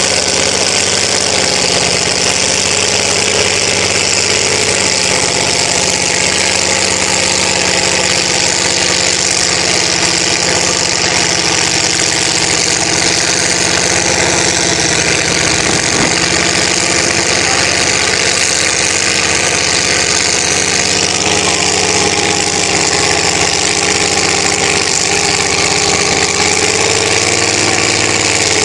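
Mud-bog pickup truck's engine running steadily as the truck crawls through a deep mud pit.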